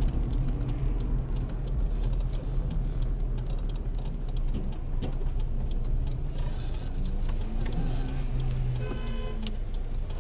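Steady low rumble of a car's engine and road noise heard inside the cabin, with a regular light ticking running through it and a brief pitched tone about nine seconds in.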